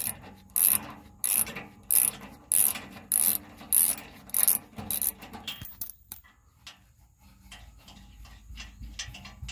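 Hand socket ratchet backing out a tight 15 mm skid-plate bolt: its pawl clicks in regular strokes, about one and a half a second. The clicking stops a little past halfway, leaving only faint ticks.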